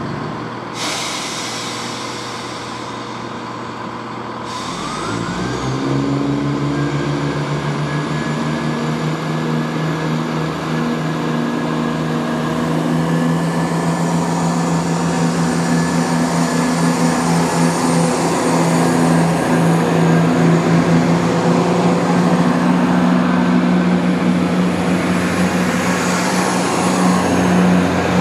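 Class 170 Turbostar diesel multiple unit pulling away. A hiss of air lasts a few seconds, then about five seconds in its underfloor MTU six-cylinder diesel engines come up to power. They settle into a steady drone as the train accelerates past.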